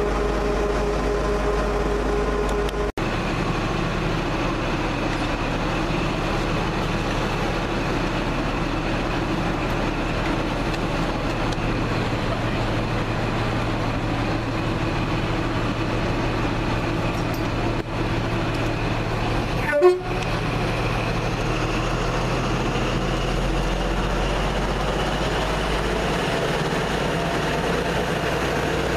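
Diesel train engines running steadily: first a Class 66 freight locomotive approaching, then, after about three seconds, a Class 43 HST power car at the platform. A short sharp knock stands out about two-thirds of the way through.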